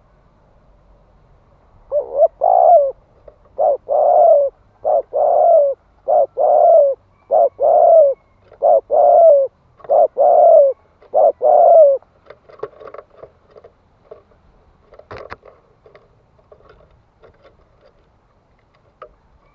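Spotted dove cooing in a quick run of loud paired coos, a short note then a longer one, about eight pairs in ten seconds. After that come softer, broken coos and one sharp click. This is the rapid 'thúc' coo that keepers play as a decoy to provoke wild doves.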